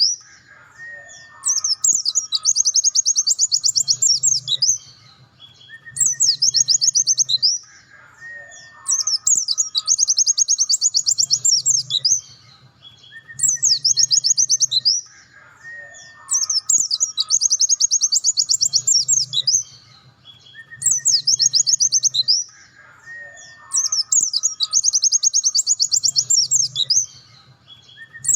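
Pleci dakun white-eye singing its 'nembak' song: rapid, high trilled phrases that repeat every few seconds, a short phrase and a longer one in turn.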